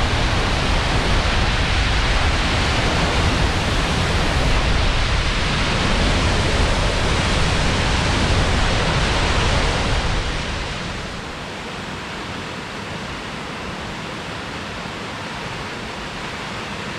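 Fall Creek Falls in flood, a tall waterfall heard close at its base: a steady roar of rushing water. About ten seconds in, the deep low end drops away and the sound eases to a slightly quieter, lighter rush.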